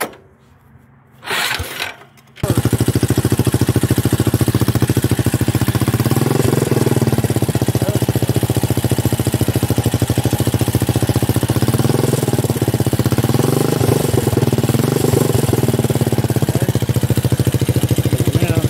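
Small ATV-type engine of a home-built buggy starting up about two and a half seconds in, then running steadily with an even, rapid firing beat.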